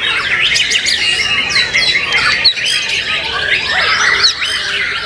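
White-rumped shamas (murai batu) singing at once, a dense, unbroken tangle of overlapping fast whistles, chirps and trills from several birds.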